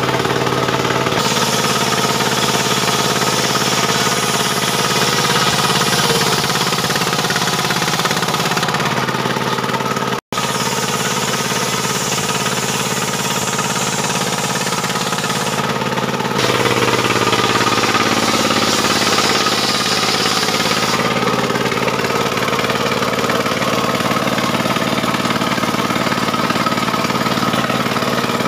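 Portable circular sawmill running: its stationary engine drives a large circular saw blade at a steady speed, and the hiss of the blade ripping through a sentang log rises over the engine for several seconds at a time, twice.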